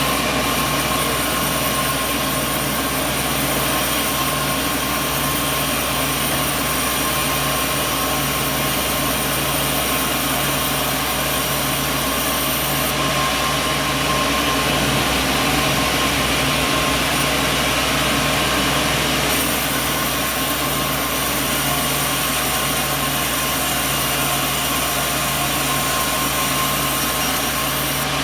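Sawmill machinery running steadily: a continuous mechanical drone with a few fixed whining tones.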